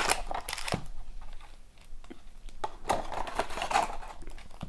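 Plastic wrap crinkling and rustling as a sealed box of hockey cards is unwrapped, in two short spells: one about half a second in, and another from about three seconds in.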